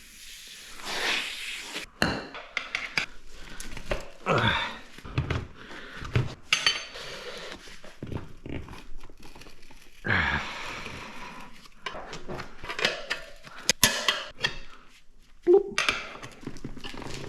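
Steel tire levers and other metal tools clinking and knocking against a motorcycle wheel rim and each other while the tire is worked on. The knocks are irregular and come in quick clusters, with a few short scraping sounds.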